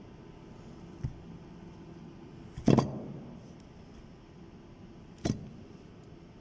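Curved metal labyrinth seal segments from a steam turbine being handled and knocking against the metal casing: a light tap about a second in, a loud clank near the middle that rings briefly, and another clank near the end.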